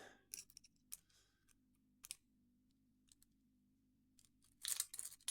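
A few faint, scattered metallic clicks and taps, then, near the end, a rapid run of louder clicking and rattling as a rake pick is scrubbed back and forth over the pin tumblers of a padlock.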